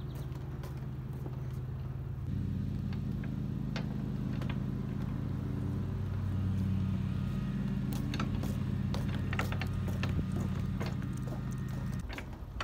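An engine running with a steady low drone that gets louder a couple of seconds in and cuts off suddenly near the end, with scattered light mechanical clicks of spinning reels being cranked.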